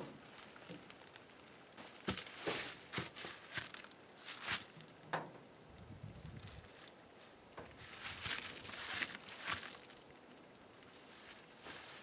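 Rope being threaded through and knotted onto a metal door handle: intermittent rustling and crinkling with light clicks and taps, coming in several short bursts.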